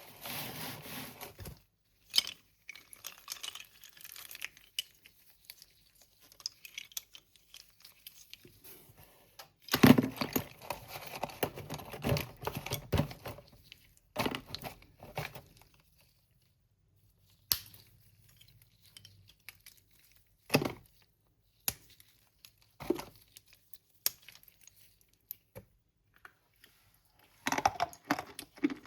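Crinkling and tearing of slate pencil packaging, with scattered sharp clicks and taps. The longest, loudest stretch of rustling comes about ten seconds in.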